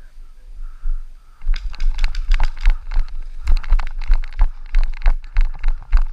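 Rapid, irregular knocks and scuffs close to the microphone, about three or four a second, each with a low thump, starting about a second and a half in. Faint honking of geese in the first second.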